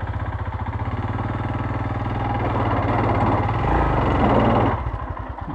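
Royal Enfield Himalayan's single-cylinder engine running at low revs under load. About three seconds in, the revs rise and a gritty hiss of the rear tyre spinning in loose gravel joins it, then both drop away near the end: the tyre is slipping and the bike cannot climb the slope without momentum.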